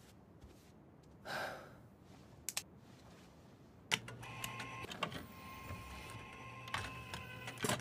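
A soft rush about a second in. About four seconds in a button clicks, and a quiet machine whir follows with a low hum, thin steady tones and scattered clicks, as a disc player starts up.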